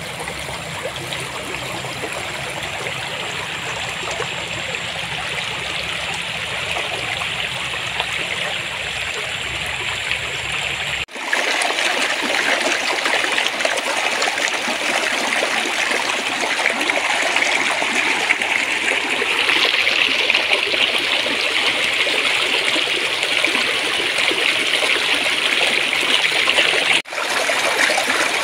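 Stream water flowing and trickling steadily over rocks. About a third of the way in it cuts abruptly to a louder, brighter rush of water, and there is another brief break near the end.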